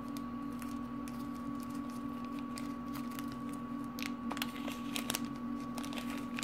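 Small clicks and light rustling of hands handling jewelry pliers and tiny metal earring findings, more frequent from about four seconds in, over a steady electrical hum.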